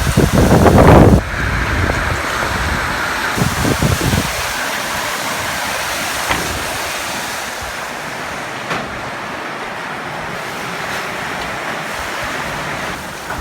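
Hail storm: a loud, steady hiss of rain and hail pelting down, with a few sharp ticks of stones striking. Wind buffets the microphone for the first second or so.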